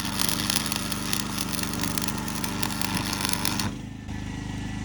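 A motor running steadily, with a crackling hiss over it that cuts off suddenly about three-quarters of the way through, leaving the motor running.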